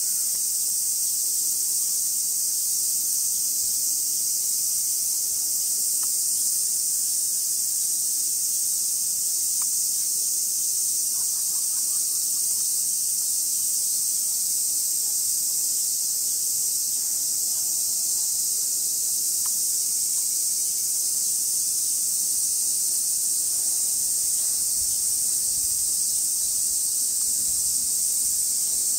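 Steady high-pitched drone of a summer insect chorus, unbroken and even throughout, with a few faint ticks underneath.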